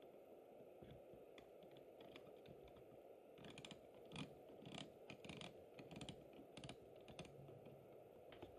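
Faint irregular clicking and ticking from a working OO-scale model crane's mechanism as it winds its hook, bunched in the middle of a near-silent stretch.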